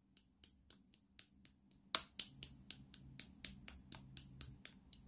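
Slime being pressed and squeezed with the fingers, making sharp clicking pops about four a second, loudest about two seconds in.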